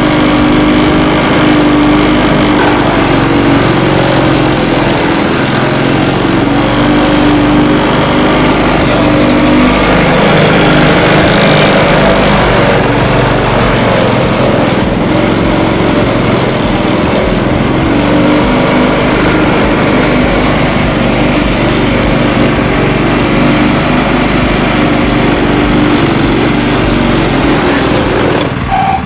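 Motor-driven grass chopper (chaff cutter) running steadily and loudly, with a constant engine hum.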